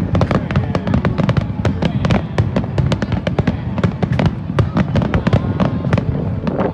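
Fireworks display in a rapid barrage: sharp bangs and crackling bursts, several a second, over a low rolling boom.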